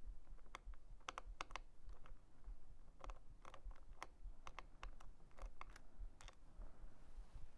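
Irregular small clicks and taps of metal and plastic parts and a small screwdriver being handled while a baitcaster reel is taken apart, about a dozen light clicks spread unevenly.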